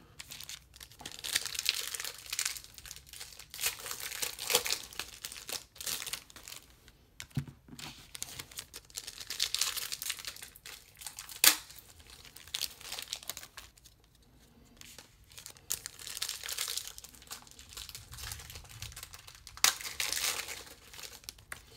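Donruss Optic football card packs being torn open by hand, their wrappers crinkling and tearing in irregular bursts, with one sharp snap about halfway through.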